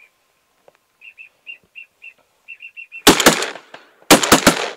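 Short high chirps repeating, then from about three seconds two quick volleys of shotgun fire, about seven shots in all, fired by several hunters at passing teal.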